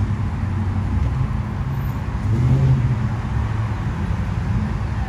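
Dodge Ram pickup truck engines running as the trucks roll slowly across a parking lot, a steady low rumble that swells louder about two and a half seconds in.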